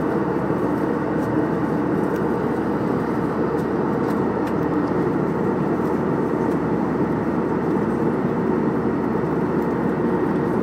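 Steady cabin noise of an airliner in cruise flight: an even hum and rush of engines and airflow heard inside the cabin, unchanging throughout.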